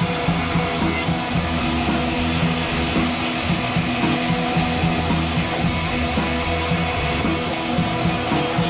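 Background rock music with guitar and drums, playing continuously at a steady level.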